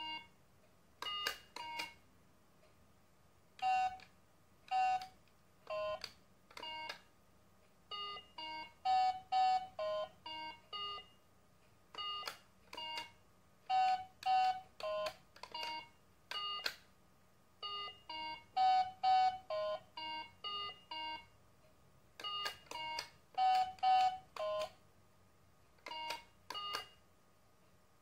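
Handheld Simon-style electronic memory game beeping: short electronic notes of a few different pitches, one for each coloured button as it lights, in quick runs of several notes with short pauses between.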